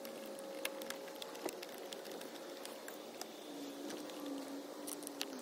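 A few light clicks and taps from hands and a screwdriver working at a plastic battery box mount on an e-bike frame. Under them runs a faint steady hum, and a lower tone joins after about three and a half seconds and slides down in pitch near the end.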